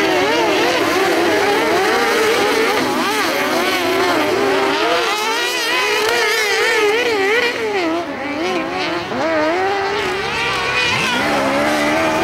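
Several kart cross buggies racing on a dirt track, their engines revving up and down over one another as they brake and accelerate through the corners. About eleven seconds in, one engine climbs sharply in pitch as it accelerates.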